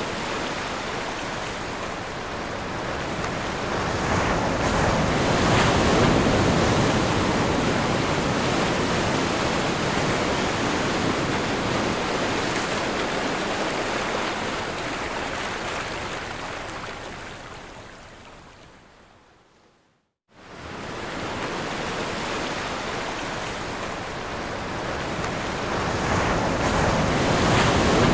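Ocean surf: a steady rush of breaking waves that swells about five seconds in. It fades away to silence about twenty seconds in, then comes back and swells again near the end.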